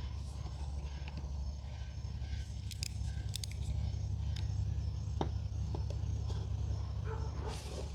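Scattered light clicks and ticks of small parts being handled while a coax connector is assembled, over a steady low hum.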